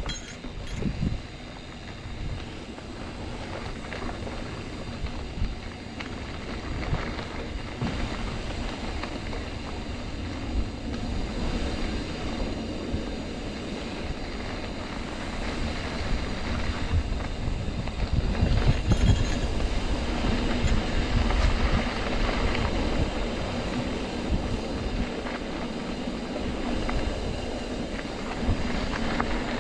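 Trek Roscoe 8 hardtail mountain bike rolling over a dirt trail: a steady rumble and rattle of the tyres and frame, with wind buffeting the camera microphone. It gets louder for a few seconds past the middle.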